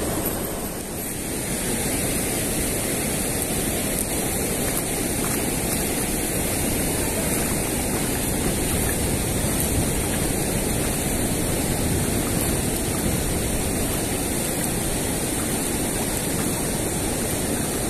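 Steady rush of swift-flowing river water below a water gate, an even noise with no breaks.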